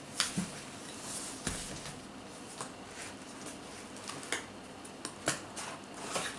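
A cardboard mailer box being handled and opened by hand: scattered light clicks and taps with soft scraping rustles of the cardboard lid and flaps.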